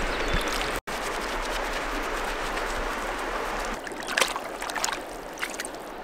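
Shallow river flowing steadily over stones, with small splashes and drips of hands being rinsed in the water. The flow is quieter after about four seconds, where a few separate drips and splashes stand out.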